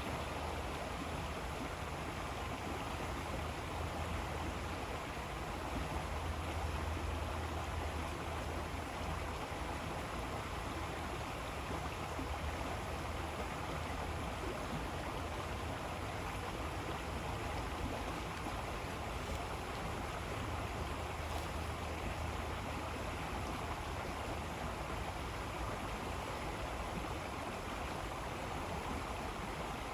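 River water flowing steadily, a continuous rushing stream.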